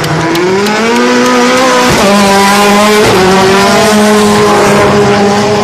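Supercar-class rallycross car's turbocharged four-cylinder engine accelerating hard out of a corner. Its pitch climbs, then drops sharply twice at quick upshifts about two and three seconds in, and then holds steady.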